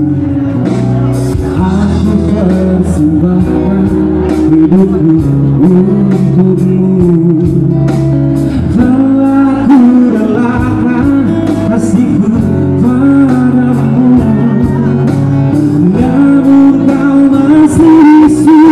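A man singing a song live to guitar accompaniment.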